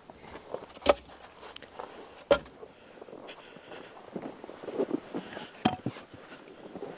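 Split firewood logs knocking as they are tossed into a wood boiler's firebox: two sharp wooden knocks in the first couple of seconds, then footsteps in snow and a third knock near the end.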